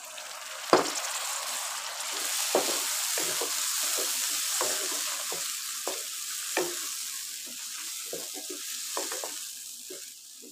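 Chopped onion, tomatoes and green chillies sizzling in hot ghee in a wok just after water is poured in, while a wooden spatula stirs and knocks against the pan at irregular moments. The sizzle swells about two seconds in and dies down near the end.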